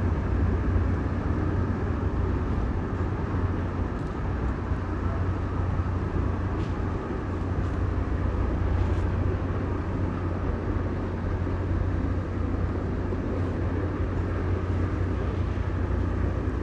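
Ferry's diesel engines running: a steady low rumble, with a few faint clicks over it.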